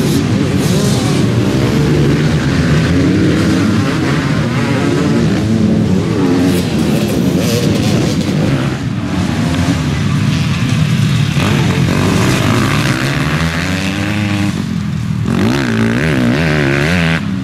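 Several motocross dirt bikes racing past, their engines revving hard and dropping back again and again as the riders work the throttle and shift through the jumps and turns.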